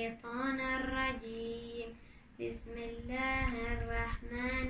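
A boy reciting the Quran in melodic chant, his voice holding long drawn-out notes in two phrases with a short pause for breath between them.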